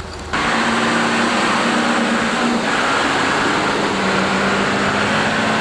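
Wheel loader's diesel engine running steadily as the machine drives along a muddy road, with a low, even hum under a steady noise.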